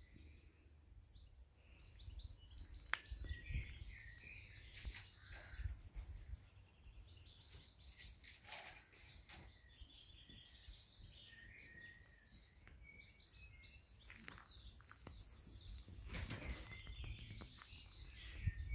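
Faint songbirds chirping and trilling, with many short calls scattered throughout over a low rumble.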